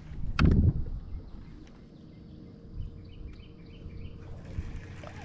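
A short knock and rush just after the start, then low wind and water noise with a few faint bird chirps about three seconds in.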